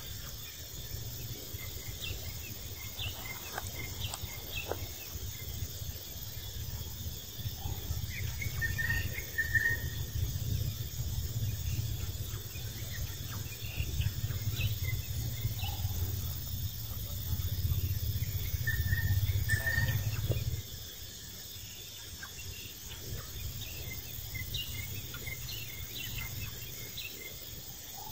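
Outdoor ambience of insects chirping, with a few short high chirps and a low rumble that cuts off suddenly about two-thirds of the way through.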